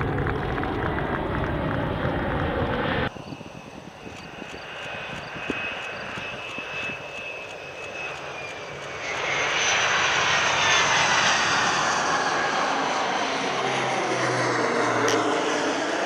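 Jet engine of the Boeing MQ-25 Stingray unmanned tanker whining as the aircraft moves along the runway. After a cut about three seconds in it is quieter, with a steady high whine. From about nine seconds a louder rush of jet noise with a slowly falling whine follows as the aircraft lands.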